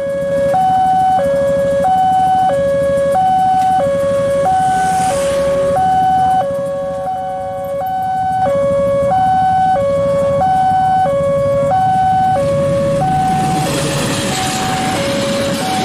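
Railway level-crossing warning alarm sounding two alternating electronic tones, high and low, switching about every two-thirds of a second. Over the last couple of seconds a diesel locomotive and passenger coaches pass through the crossing, and their rumble and wheel noise rise under the alarm.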